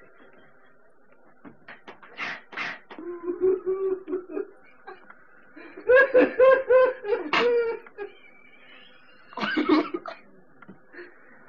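Bursts of human laughter and other vocal noises, breathy outbursts and cough-like sounds, in pulsing runs with pauses between, from an old cassette tape recording.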